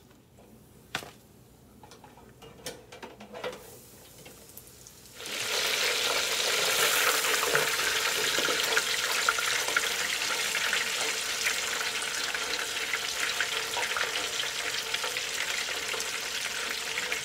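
Cornmeal-coated okra deep-frying in hot oil in an electric deep fryer. After a few faint taps, a loud, steady crackling sizzle starts suddenly about five seconds in.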